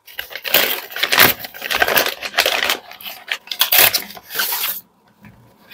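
A paper courier mailer being crumpled and torn open by hand: a dense run of crinkling and rustling that stops about five seconds in.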